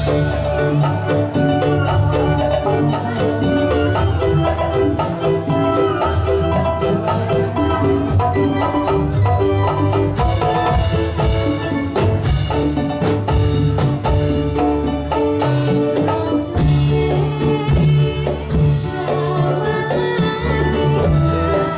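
Dolalak folk music: a percussion ensemble plays a steady, dense beat with jingling tambourine-like strokes under a held melodic line.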